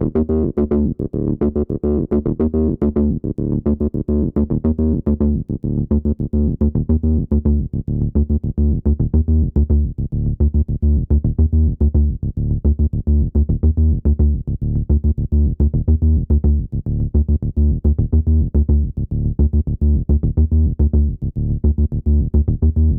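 Behringer TD-3 acid bass synthesizer playing a fast repeating sequence of short notes, its sound turning duller for a few seconds and then brightening again.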